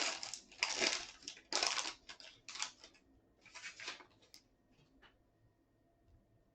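A foil trading-card pack wrapper being torn open and crinkled, in a handful of quick rustling bursts that die away about four seconds in, leaving a few faint clicks.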